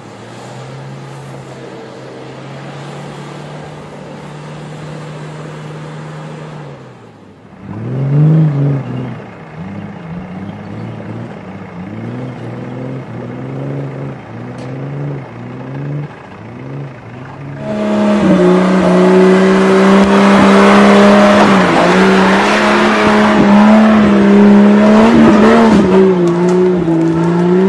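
4x4 SUV engines driving off road, in sections that change abruptly twice: first a steady drone, then repeated revs rising and falling, then a louder engine pulling hard over a rushing noise.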